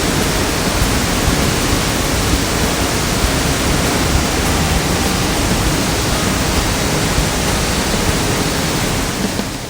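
O'daru waterfall, a steady rush of falling water that fades down just at the end.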